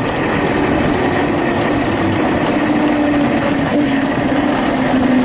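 Kunray 3000-watt 72 V brushless electric go-kart motor and chain drive whining, its pitch falling slowly as the kart slows. Loud wind and tyre noise from the moving kart runs underneath.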